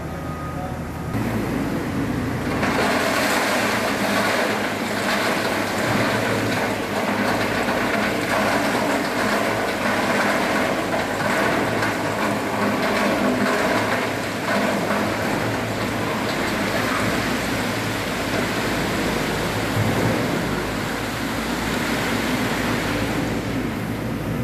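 Hyundai dump truck tipping a load of rock: the engine speeds up about a second in to drive the hydraulic hoist, and the stone slides off the raised bed onto the floor in a steady rushing clatter under the engine's hum.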